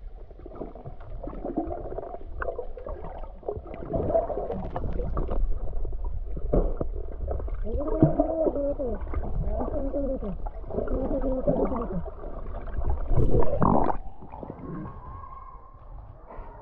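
Muffled water sounds, gurgling and sloshing, with muffled wavering pitched sounds about halfway through and a louder surge just before the end.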